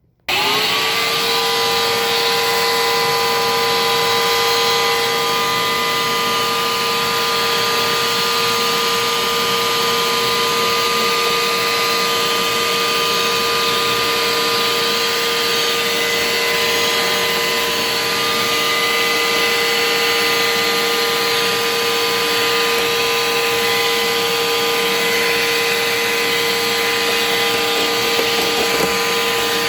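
Vacuum cleaner switched on and spinning up, then running steadily with a constant whine while it sucks dust from the back of a refrigerator.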